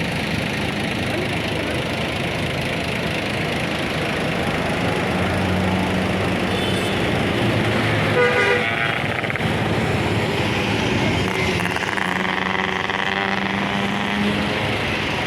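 Passing road traffic with heavy bus engines running, and a short horn blast about eight seconds in.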